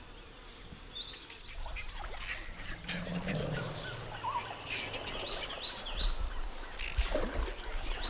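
Faint buzzing of flies for about the first second. Then come wild birds giving short, high chirps over and over, with a brief low call about three seconds in.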